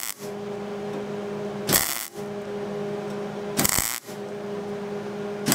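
MIG welding arc struck in short trigger tacks, three crackling zaps of about half a second each, roughly two seconds apart, with a steady hum in between. The tacks are filling holes in thin, rusty mild steel exhaust tubing joined to stainless.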